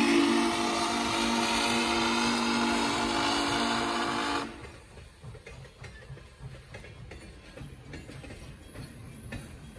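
Steam whistle of Pere Marquette 1225, a 2-8-4 Berkshire steam locomotive, held in one long blast of several notes at once that cuts off suddenly about four and a half seconds in. After that comes the quieter rumble and clatter of the train rolling on the rails.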